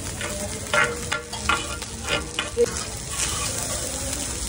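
Metal spatula scraping and clinking against a large flat griddle as egg fried rice is stirred and turned, in about six sharp, irregular strokes over a steady sizzle of frying.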